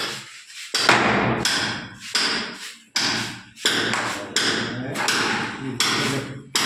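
Hammer blows on wood at the top of a door frame, driving in a wooden wedge: a steady run of about ten strokes, roughly three every two seconds, each with a short ringing tail.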